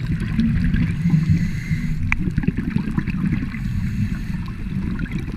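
Muffled underwater noise picked up by a camera in its waterproof housing: a low, uneven rumble of water and bubbles, with a few faint clicks.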